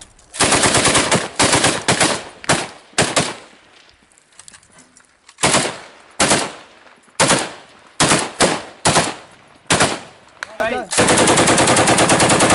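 Belt-fed machine gun firing close by in rapid automatic bursts, with single spaced shots in between, ending in a long sustained burst of about ten rounds a second.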